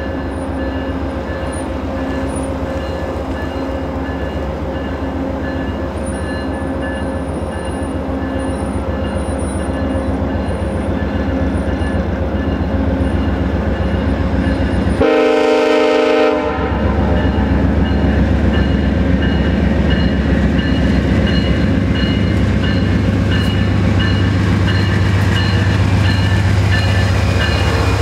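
GE P42DC diesel locomotive pulling a passenger train away from a station stop, its engine running steadily and growing a little louder as it comes past. About halfway through it sounds one horn blast of roughly a second and a half.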